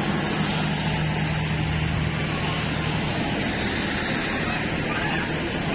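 A train's diesel engine idling steadily, a constant low hum.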